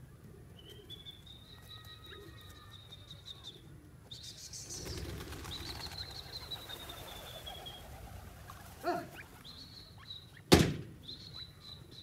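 Francolins dust-bathing in dry soil: rustling and wing flutters as they shuffle and flick dirt, with a knock and then a louder sharp knock near the end. A thin, steady high tone comes and goes in the background.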